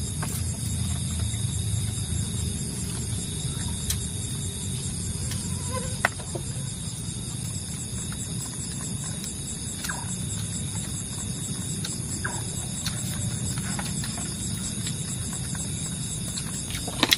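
Night insects chirring steadily in several high pitches over a low steady rumble. There are a few faint short calls and some light clicks.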